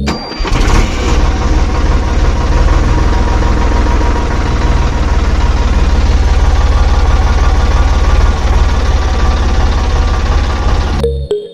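Tractor engine idling steadily with a fast, even throb, cutting off abruptly near the end.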